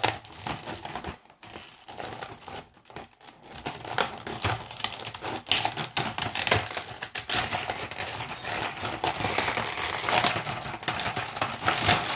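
Plastic packaging crinkling and clicking as action-figure parts are worked out of a plastic tray and a plastic cover over them is pried off. The handling gets busier and louder after about four seconds.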